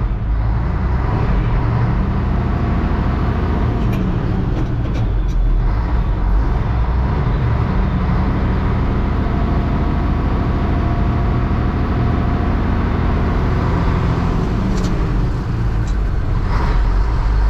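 Vehicle engine and road noise heard from inside the cab while driving in town: a steady low drone, with a few faint clicks.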